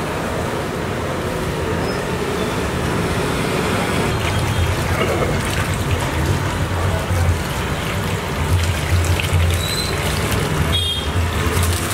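Background music over water poured in a thin stream from a plastic jug into a well of flour, with a hand sloshing and mixing the liquid into the dough.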